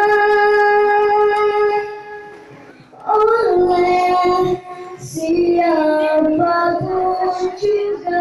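A child singing a song, holding long notes with a softer stretch about two seconds in before the next phrase.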